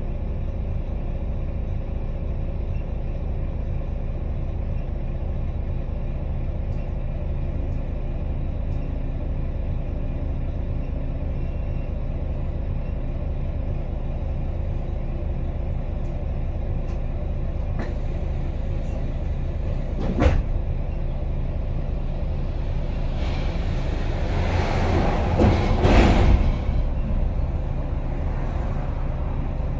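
Volvo B9TL double-decker bus's six-cylinder diesel idling steadily while the bus stands still. A short sharp hiss of compressed air comes about twenty seconds in, and a longer, louder air hiss a few seconds before the end.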